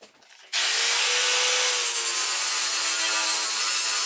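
Angle grinder starting about half a second in and then grinding steel steadily, a loud continuous hiss: cleaning the metal before welding.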